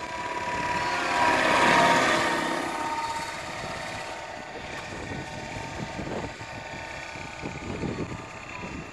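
Radio-controlled scale Bell UH-1 model helicopter flying past: its rotor and motor whine grow louder to a peak about two seconds in, then fade as it flies off into the distance.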